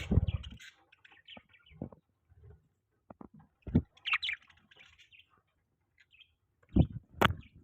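Budgerigar giving a few short, high chirps about halfway through, amid scattered short knocks and taps.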